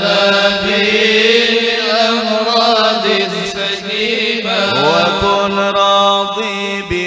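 A group of men chanting an Arabic devotional poem (syair) through microphones, drawing out long, slowly bending notes between the words of the verse. About four and a half seconds in, a voice slides up into the next phrase.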